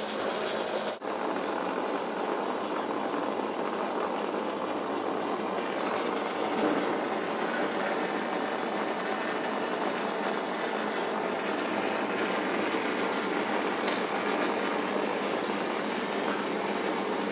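Steady mechanical running noise, a continuous rattling rumble like machinery at work, with a brief dropout about a second in.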